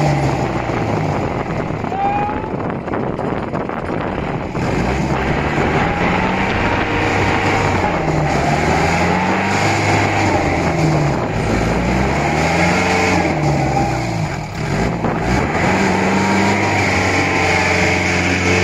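Mahindra Major jeep's diesel engine revving up and down over and over as it strains to pull out of a deep mud hole while being pushed.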